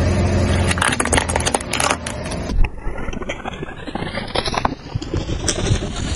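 A car tyre rolling over and crushing small plastic toys and candy: a run of sharp cracks and crunches over the car's engine running.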